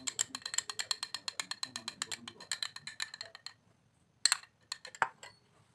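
An egg being beaten by hand in a bowl: a utensil clicking rapidly and evenly against the bowl, about nine strokes a second, stopping about three and a half seconds in, followed by a few single clinks.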